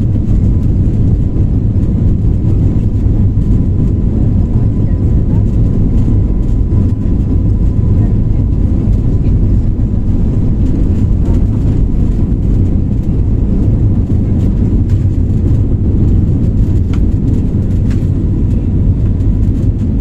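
Loud, steady cabin noise of an Airbus A320-family jet airliner on its takeoff run and liftoff: a deep rumble of the engines at takeoff thrust, with a faint high steady whine over it through the first half.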